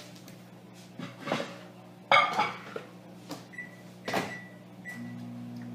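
Microwave oven being loaded and started: knocks as the dish goes in and the door shuts with a loud clunk about two seconds in, then three short keypad beeps, and the oven starts running with a steady low hum near the end.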